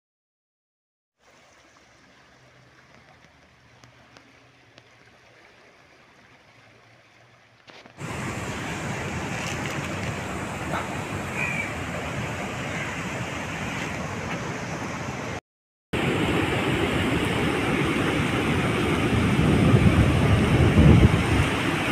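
A faint hiss at first, then the steady rush of a flood-swollen river. After a brief cut comes heavy surf breaking on a beach, louder and deeper, swelling near the end.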